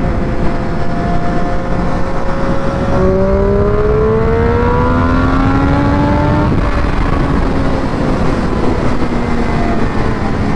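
Triumph Street Triple RS's 765 cc inline-three through an Arrow slip-on exhaust, pulling hard under acceleration with its pitch climbing from about three seconds in. About six and a half seconds in the throttle is rolled off and the pitch drops as the bike slows. Heavy wind noise over the microphone at freeway speed.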